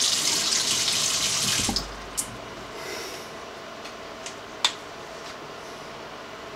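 A bathroom sink tap runs with a steady hiss for nearly two seconds, then is shut off. A few sharp clicks follow.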